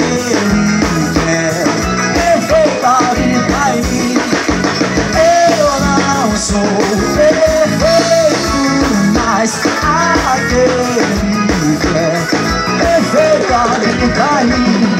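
Live band playing an instrumental passage of a gospel forró song: electric bass, electric guitar and drum kit on a steady beat, with a bending lead melody on top.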